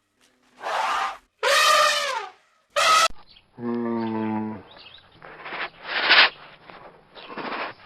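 A series of animal calls: three short pitched calls that fall in pitch, then a low steady call about a second long, then several short breathy bursts.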